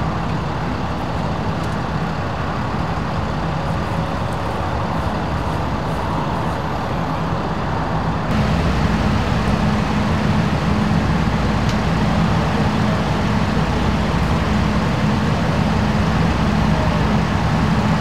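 Idling fire rescue truck engine: a steady low hum with outdoor noise, stepping up a little in level about eight seconds in.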